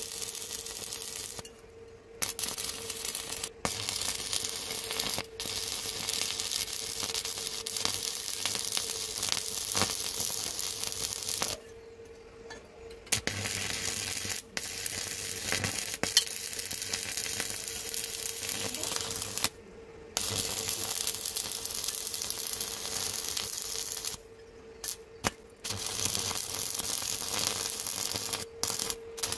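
Stick (arc) welding: the electrode's arc crackling and sizzling steadily on steel, stopping abruptly and striking up again about four times.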